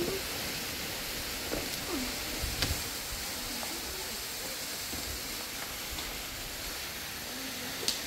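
Steady rushing of a stream's flowing water, with a brief sharp click near the end.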